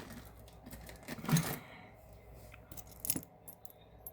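Costume jewelry clinking and jingling as pieces are handled, with a few sharp clicks; the loudest comes about a second in, another near the end.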